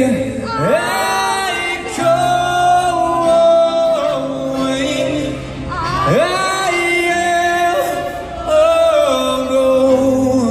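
Unaccompanied singing: long held notes in a melody, swooping up into each new phrase, with no instruments.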